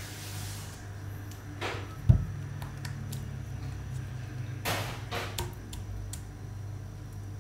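Gloved hands handling thin spring roll wrappers on a table: a few short rustles and one sharp thump about two seconds in, over a steady low hum.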